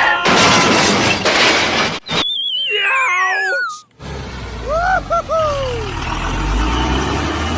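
A run of edited cartoon sound effects. First comes a burst of dense noise, then a wavering whistle that falls in pitch for about two seconds. It ends in a low rumble with a few short swooping chirps.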